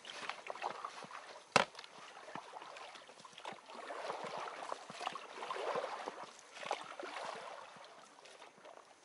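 Inflatable boat moving through the water under oars: splashing and gurgling water, with many small ticks and one sharp knock about a second and a half in. The sound grows quieter near the end.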